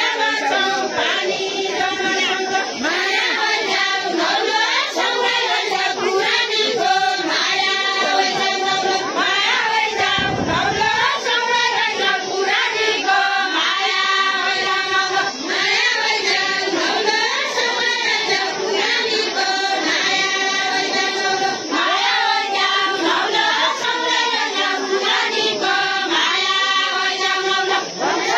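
A group of women singing a Deuda folk song together, unaccompanied, in a continuous sung melody with no instruments. A brief low rumble sounds about ten seconds in.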